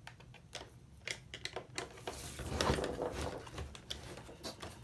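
Small screwdrivers and tools clicking and clattering against each other and a plastic camera casing, with a denser stretch of rattling and scraping in the middle as a tool is picked and tried.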